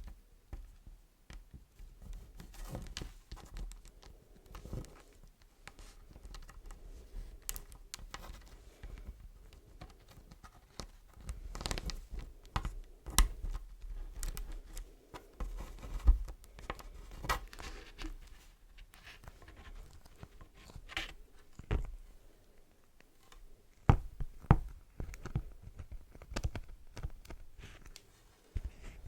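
Close-miked crinkling and scratching of beeswax wraps, with irregular crackles and a few sharper snaps or taps.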